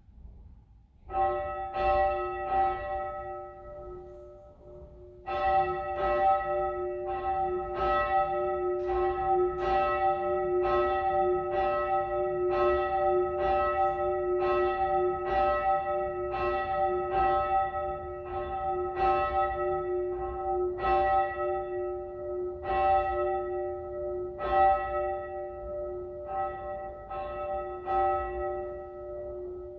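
A single church bell tolling with even strokes, about one and a half a second. It gives three strokes, pauses briefly, then rings on steadily.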